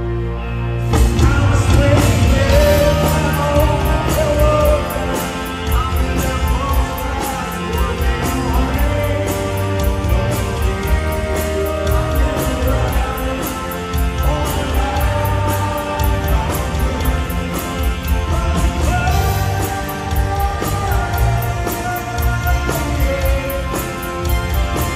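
Rock band playing live: drums keep a steady beat under electric guitar, with a man singing over it.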